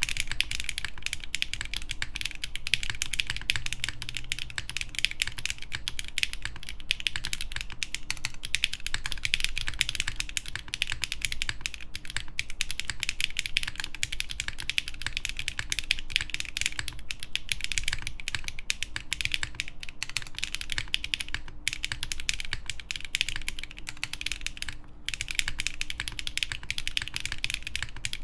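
Fast, continuous typing on an Ikeygai Albatross TKL mechanical keyboard with factory-lubed HMX Sunset Gleam linear switches, a polycarbonate plate and GMK keycaps. It is a dense stream of key clacks, broken by a couple of brief pauses near the end.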